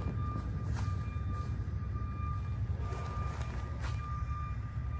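A steady low rumble with a faint high-pitched beep repeating on and off, and a couple of light clicks.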